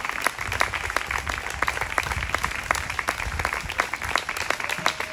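A small audience applauding, with a steady patter of hand claps in which single claps stand out.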